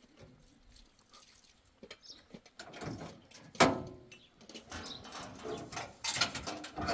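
Knocks and clattering from a loaded pickup's bed and tailgate being handled: one sharp knock about halfway through, then a burst of rattling near the end.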